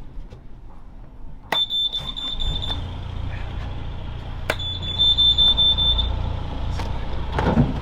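A catamaran's engines being started one after the other. Each start begins with a click and a high steady alarm beep from the engine panel, the first lasting about a second and the second about a second and a half. A low, steady engine idle sets in partway through the first beep and carries on underneath.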